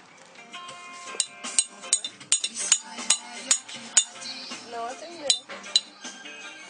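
Irregular metallic clinking and tapping, a few sharp strikes a second, each leaving a short ringing tone, with a brief voice about five seconds in.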